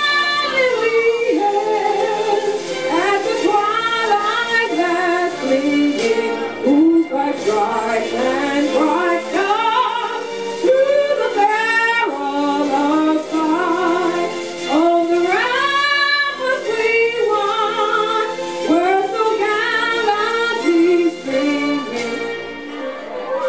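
A woman singing solo into a microphone, her voice sliding up and down in long swooping runs with a wavering vibrato on held notes.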